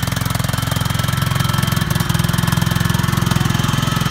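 Riding lawn mower engine running steadily under load, towing a train of barrel cars, with a rapid, even firing pulse.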